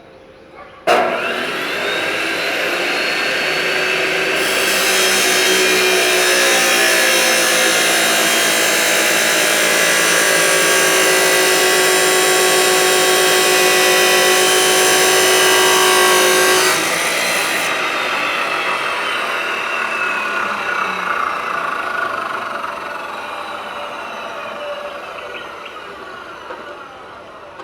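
Angle grinder switched on, its whine rising as the disc spins up, then grinding against a workpiece for about twelve seconds with a harsh rasp. Near the end the disc is lifted off and the grinder is switched off, its whine falling slowly as it winds down.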